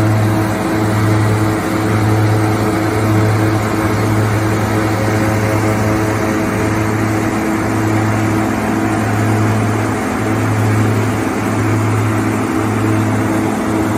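OXBO green bean harvester running while picking: a continuous low engine drone that wavers briefly every second or two, with steady whining tones and machinery noise over it.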